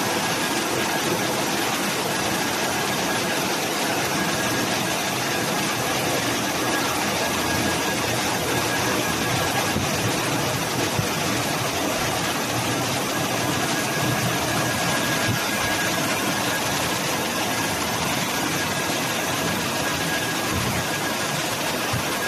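Touchless car wash dryer's electric centrifugal blowers running, a steady rush of air over the car with a faint high steady whine in it, during the wash's air-drying stage.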